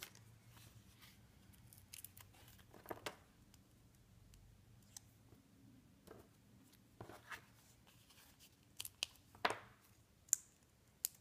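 Faint rustling and light clicking as cardstock pieces are handled and foam adhesive dots are peeled off their backing sheet, with a few sharper ticks near the end.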